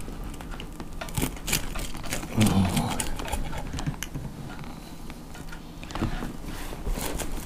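Pizza-cutter wheel rolling through a crisp baked crust and scraping on the pizza stone beneath, a run of short crackling crunches and scrapes.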